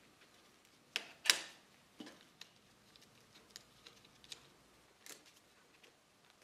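Scattered small metallic clicks and knocks as a flyscreen's steel mounting bracket, spacer and bolt are handled and fitted by gloved hands, the loudest two close together about a second in.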